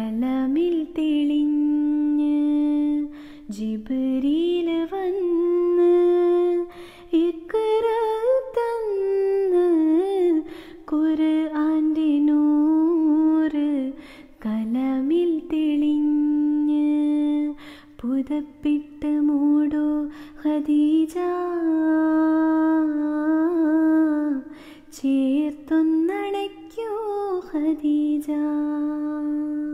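A woman singing a Mappila song (Mappilappattu) a cappella: a single unaccompanied voice with long held notes, ornamented turns between them and short pauses for breath.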